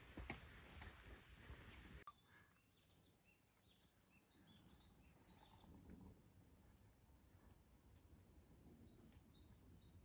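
A wild bird singing short phrases of about four quick, high chirped notes, twice, some five seconds apart, over a faint outdoor hush. Before the song, about two seconds of rustling noise with a few clicks end abruptly.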